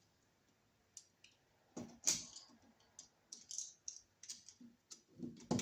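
Wall receptacle and its wires being folded and pushed into the electrical box: scattered light clicks and knocks, coming more often from about three seconds in.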